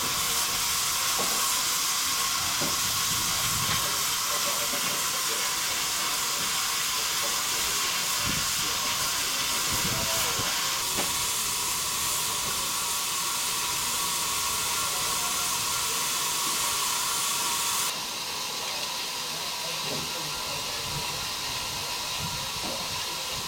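Steady hiss of steam escaping from a standing LBSCR Stroudley Terrier tank locomotive in steam; the hiss drops to a lower level about two-thirds of the way through.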